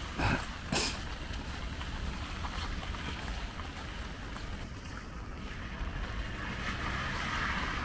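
Outdoor street ambience in light rain: a steady low rumble with a hiss over it. Two short, sharp knocks come close together in the first second, and the hiss grows a little louder near the end.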